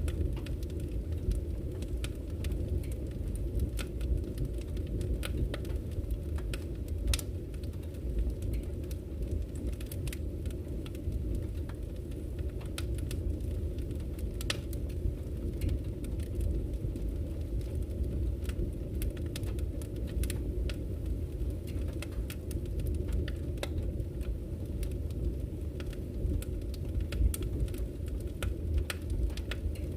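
Wood fire burning in a fireplace: a steady low rumble of flames with frequent irregular crackles and sharp pops from the burning logs.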